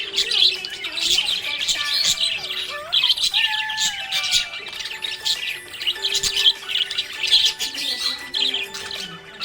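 A group of budgerigars chirping and chattering in a rapid, continuous stream of short high notes, with steady held tones underneath.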